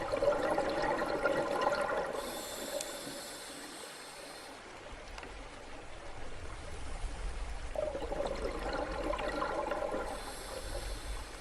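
Underwater bubbling that swells twice, about seven seconds apart. Each swell is followed by a brief high hiss, over a steady low rumble.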